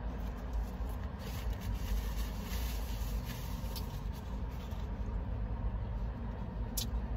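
Paper food packaging and a plastic side-dish cup handled and rustled over a steady low rumble in a car cabin. Near the end comes one sharp click, as the plastic lid of the coleslaw cup is pried open.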